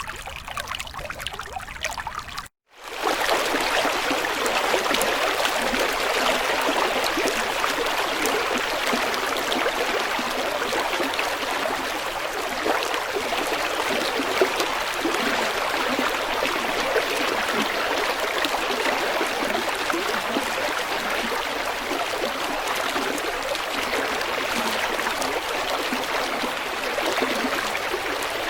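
Water of a small savannah stream flowing steadily, a continuous rushing and trickling. It drops out briefly about two and a half seconds in and comes back louder.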